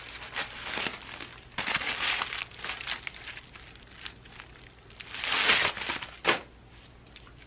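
Wig packaging crinkling as it is handled and opened, in two longer stretches of rustling with a short sharp click near the end.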